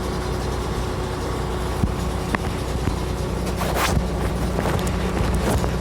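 Backhoe's diesel engine running steadily, with scattered knocks and a brief scraping rush about three and a half seconds in as it digs.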